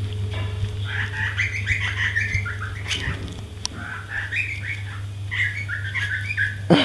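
A songbird singing: runs of quick chirping, warbling phrases, repeated with short pauses, over a steady low hum.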